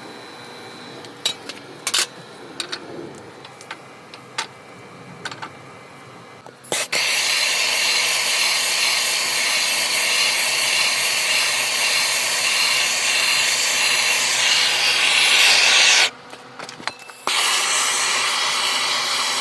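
Scattered sharp clicks and knocks of metal being handled. About seven seconds in, a loud steady spraying hiss starts. It stops for about a second near 16 s and then starts again.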